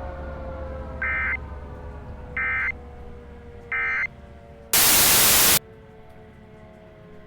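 A siren winding slowly down in pitch, with three short two-tone data bursts about a second apart, typical of the Emergency Alert System's end-of-message tones. About five seconds in, a loud burst of static lasts just under a second, and the siren fades on after it.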